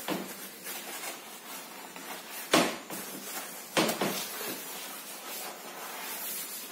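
A hand scrubbing the inside of a stainless-steel kitchen sink, a soft rubbing, with two sharp knocks a little over a second apart midway through.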